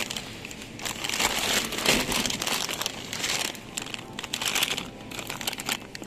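Clear plastic bag of frozen strawberries crinkling and rustling as it is handled, in uneven surges.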